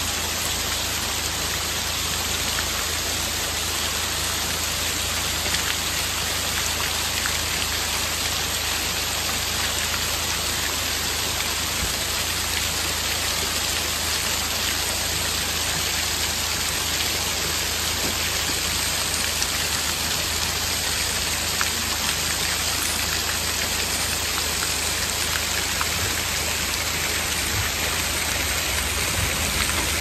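Water from a small spring-fed waterfall splashing steadily down mossy, fern-covered rock, an even, unbroken rush of falling water.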